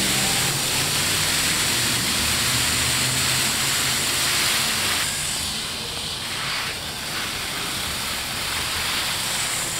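Water spray from a garden hose wand hissing steadily as it hits the soil and grass. The hiss softens a little about halfway through.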